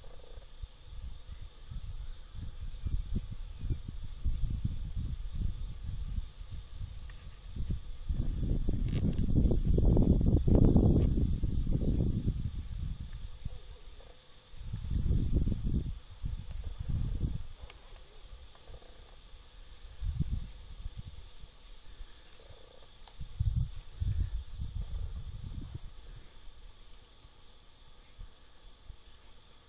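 Steady high-pitched chorus of insects, pulsing about twice a second, with wind buffeting the microphone in low gusts, strongest around a third of the way in.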